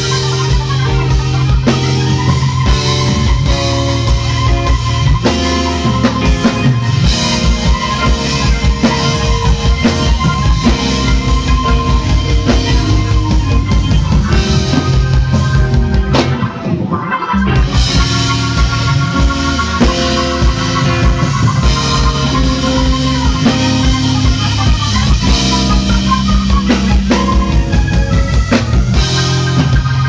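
Live band music: keyboards over a drum kit with a steady beat. The band stops for a moment about halfway through, then comes back in.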